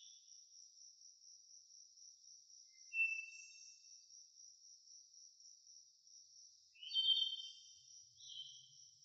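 A steady, high-pitched insect trill, with a few short, higher chirps about three, seven and eight seconds in.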